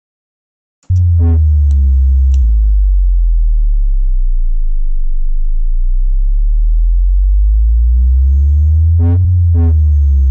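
Synthesized sub-bass playing back in a beat-making program: a loud, deep sine-like bass note that starts about a second in and steps down to a lower note, in the booming car-audio style. A swept tone glides up and down over it near the start and again near the end, from pitch automation on the bass.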